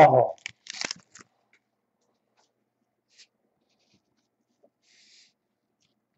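Foil trading-card pack wrapper crinkling in short crackles as the cards are pulled out, for about a second, then near silence with a faint brief rustle about five seconds in.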